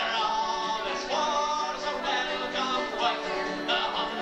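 Irish folk ballad performed live: male vocals over acoustic guitar and bodhrán.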